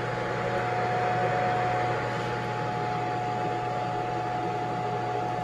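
Presto Dehydro electric food dehydrator running: its fan blowing steadily, with a constant mid-pitched whine and a low hum.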